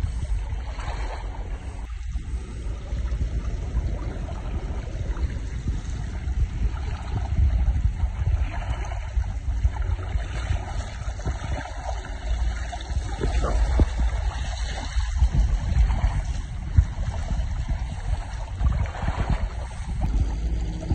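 Water rushing and splashing along the hull of a Neris folding kayak under sail, with wind buffeting the microphone as a low, uneven rumble.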